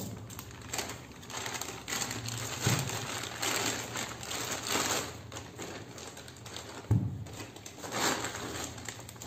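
Plastic courier mailer and the wrapping inside it rustling and crinkling as they are pulled open by hand, with a few sharp knocks, the loudest about seven seconds in.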